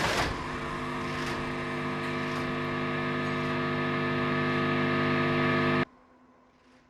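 A held, droning chord or note that sustains steadily and slowly swells, then cuts off abruptly about six seconds in, leaving near silence.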